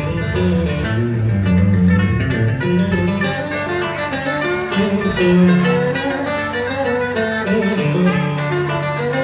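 Live tân cổ band music led by a plucked guitar melody over sustained low keyboard and bass notes.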